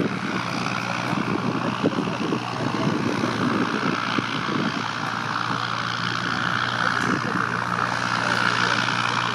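Electric light aircraft flying past: a steady propeller hum with a hiss that swells slightly near the end.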